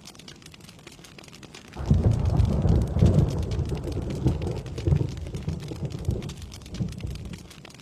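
Thunder rumbling over steady rain. It starts suddenly about two seconds in, swells in several loud peaks, then dies away near the end.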